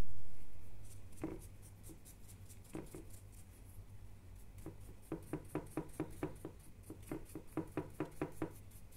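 Stiff paint brush dry-brushing the sculpted fur of a 3D-printed statue, its bristles scratching over the ridged print. After a low bump at the very start come a few scattered strokes, then about halfway through a quick run of back-and-forth scrubbing at roughly four or five strokes a second.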